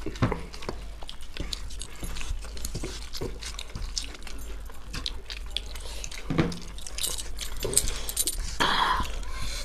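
Close-miked eating sounds: two people chewing and smacking their lips while their fingers mix rice and egg curry on steel plates, with many small wet clicks throughout.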